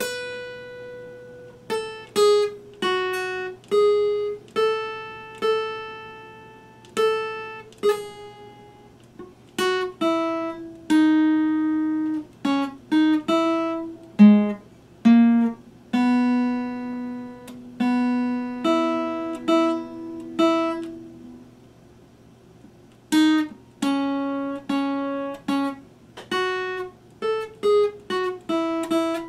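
Epiphone acoustic guitar played fingerstyle as a slow single-note melody, each plucked note ringing and fading before the next. There is a short pause about two-thirds of the way through.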